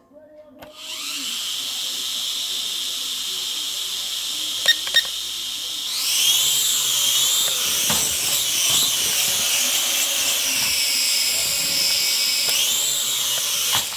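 Syma X5HW toy quadcopter's small motors and propellers spinning up to a high-pitched whine. About halfway through the whine rises and wavers in pitch as the throttle changes, then cuts off just before the end. Two sharp clicks come shortly before the pitch first rises.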